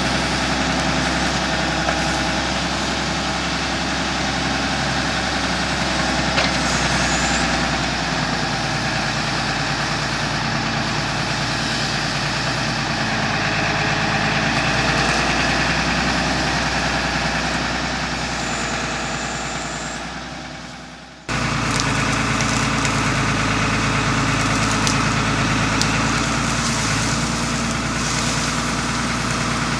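Farm tractor's engine running steadily under load as it powers the hydraulic loading crane. About two-thirds of the way through the sound fades away, then cuts back in suddenly at the same steady level.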